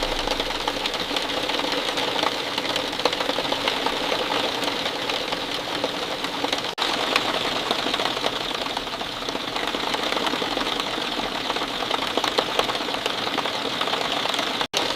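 Steady rain falling, a dense patter of many small drops. The sound cuts out for an instant twice, about halfway through and near the end.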